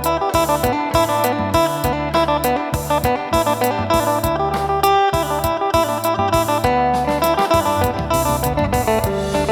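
Phin, the Isan plucked lute, playing a fast melody of quick plucked notes over a low bass line and a regular percussion beat.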